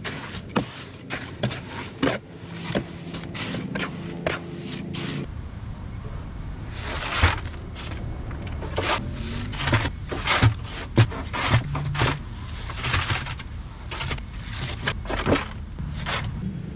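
Irregular scrapes and sharp knocks of hand tools working soil and concrete while preparing concrete piers, with an abrupt change in the sound about five seconds in.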